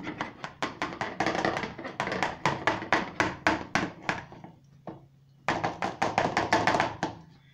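Plastic sieve being knocked by hand to sift a dry mix through, a fast run of light taps at about five a second. The taps stop for about a second past the middle, then start again.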